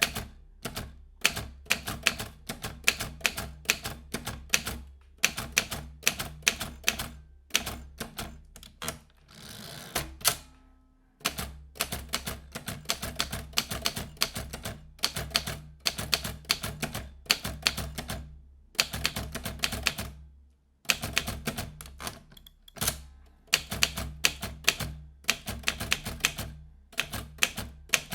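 Vintage manual typewriter being typed on: runs of sharp key strikes, several a second, broken by short pauses, with a brief scraping sound and a longer pause about ten seconds in.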